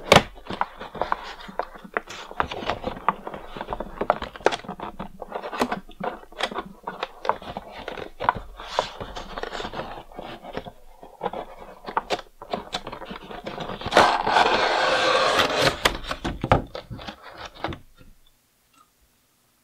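Cardboard window box and plastic blister tray of an action-figure set being handled and opened: a run of crinkles, taps and scrapes, with one longer, louder scrape about three-quarters of the way through.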